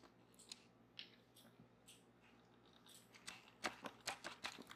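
Near silence with faint scattered clicks of yarn and a plastic circle loom being handled, then a quicker cluster of clicks near the end.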